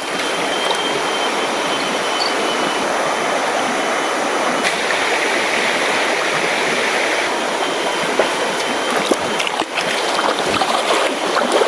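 Shallow mountain river rushing steadily over rocks, with a few short knocks and splashes near the end.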